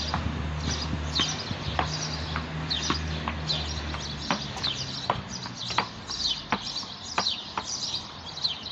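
Padel ball struck against a brick wall with a padel racket: a string of sharp hollow knocks from racket hits, wall rebounds and bounces on the paving, about two a second at an uneven rhythm.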